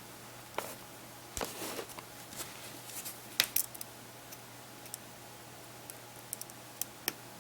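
Scattered small clicks and taps of tools and small parts being handled while reassembling a Samsung Galaxy Player 5.0 media player. There is a short scraping rustle about a second and a half in, and a cluster of sharp clicks about three and a half seconds in.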